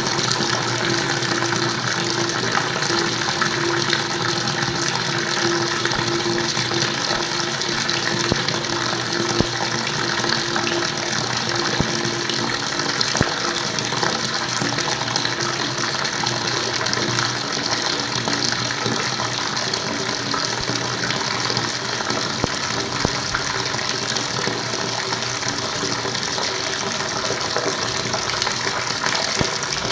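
Flowing water, a steady, even rush of splashing water. A faint steady hum runs under it over the first half and fades out.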